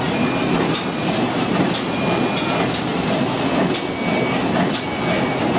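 Automatic hamburger packing machine running: a steady mechanical clatter, with sharp clicks about once a second from its cycling mechanism.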